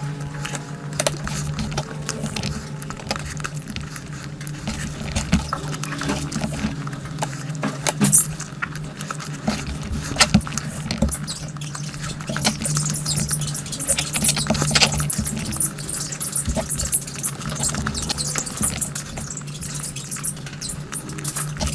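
Close-miked wet chewing and lip-smacking of someone eating spicy biryani and curry: many short smacks and clicks, over a steady low hum.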